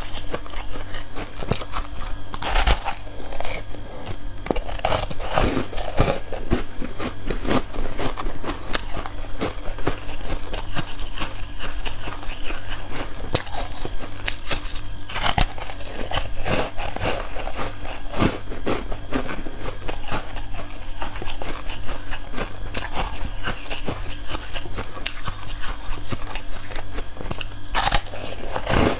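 Close-miked biting and chewing of foam ice (aerated frozen ice): a steady stream of crisp crunching and crackling, with a few louder bites standing out, about 2.5, 5, 15 and 28 seconds in.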